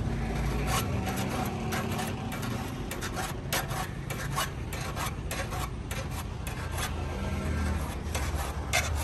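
Small hand file sharpening the teeth of a steel hand saw blade, metal rasping on metal in quick, repeated strokes, several a second.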